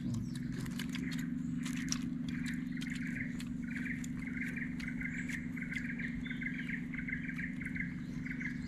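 Birds chirping over and over in a steady, pulsing run of short calls, with a steady low hum underneath.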